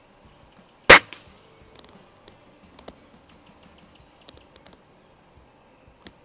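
A single shot from a Daisy Model 131 .177 break-barrel air rifle about a second in: one sharp, loud crack with a short, weaker click just after it, then only faint small ticks.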